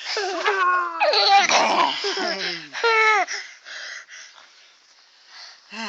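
Toddler laughing and squealing in a run of high, falling cries over the first three seconds, then fainter babbling.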